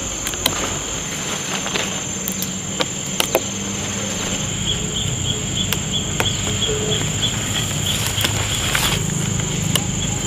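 Insects calling: a steady high-pitched drone, joined about four seconds in by a rhythmic chirping of about three chirps a second, with scattered sharp clicks over it.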